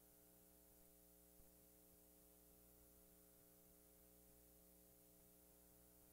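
Near silence: a steady low hum and faint hiss, with one small tick about a second and a half in.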